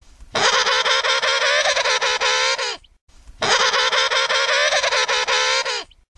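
Emperor penguin trumpeting: two long calls with a short gap between them, each a buzzy, wavering trumpet call. The same call is repeated.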